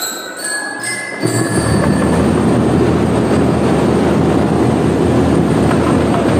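A drum and lyre corps: a few bell lyre notes ring, then about a second in the drums come in with loud, continuous drumming that holds steady.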